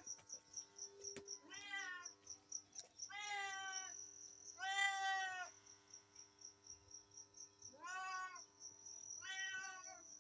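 A cat meowing repeatedly, about five separate meows of roughly half a second each, spaced a second or more apart. A steady, fast high-pitched chirping, like a cricket, pulses behind them.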